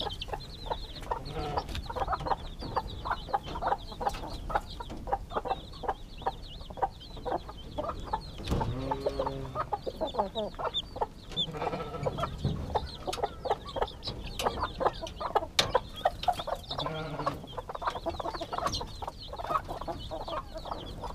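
Chickens clucking and chicks peeping in a steady chatter of short calls, with a few lower, longer calls about nine, twelve and seventeen seconds in.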